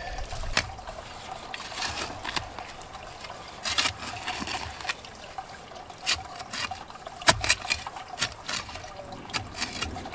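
A short-handled shovel digging into soil, a run of quick scrapes and chops as the blade bites the dirt, over the steady trickle of a garden waterfall.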